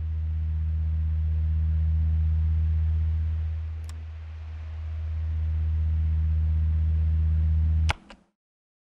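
Deep sustained drone from a film soundtrack, easing off in the middle and swelling again, then cut off abruptly with a sharp click as it ends.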